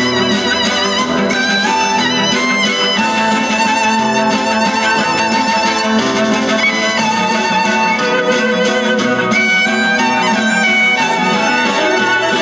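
Instrumental music with a violin playing the melody.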